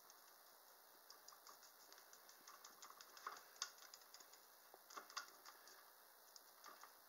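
Faint, irregular small clicks and rustles of fingers handling a potted plant's stem and leaves, with a few louder ticks in the middle and about five seconds in.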